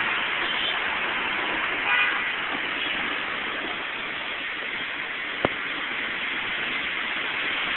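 Heavy rain pouring down with traffic passing on the wet road, a steady hiss throughout. A vehicle horn gives a short toot about two seconds in, and a single sharp click sounds about five and a half seconds in.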